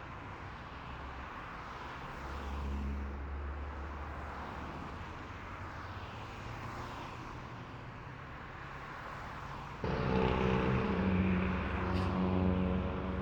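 Road traffic going by, with a low rumble of a vehicle passing a couple of seconds in. About ten seconds in, a much louder engine drone from a heavy vehicle starts abruptly.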